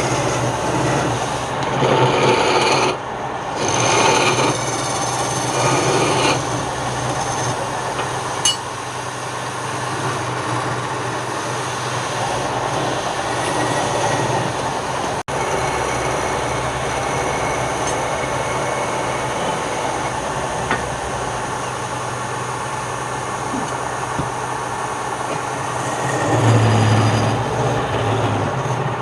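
Wood lathe running with a steady hum while the spinning wood is worked, a continuous rasping over the motor. It grows louder in several surges during the first six seconds and again near the end.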